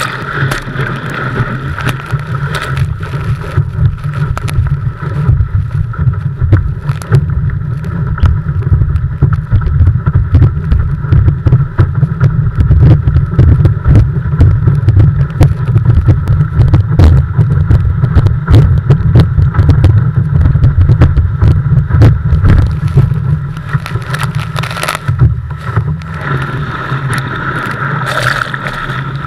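Wind buffeting an action camera's microphone on the deck of a planing windsurf board, with spray and chop splashing against the board; a loud, ragged rumble that eases briefly about 25 seconds in.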